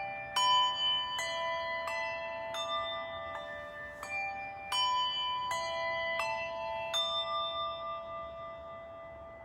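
Several bells of different pitches struck one after another, about ten strikes at roughly one every three-quarters of a second, each left ringing. They are rung as a memorial toll, each ring standing for a thousand Covid deaths. The striking stops about seven seconds in and the ringing fades away.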